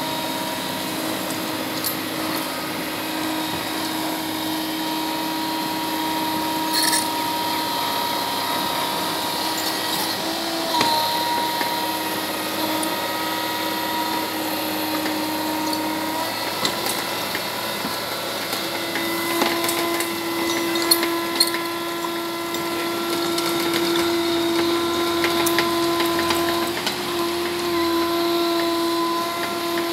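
IHI mini excavator running under load: its engine and hydraulics make a steady whine that shifts pitch a couple of times as the boom and bucket are worked. A few sharp knocks of the bucket against stones and earth come through it.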